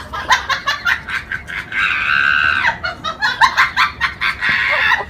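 A bird clucking in quick, repeated calls, with a longer drawn-out call about two seconds in and another near the end.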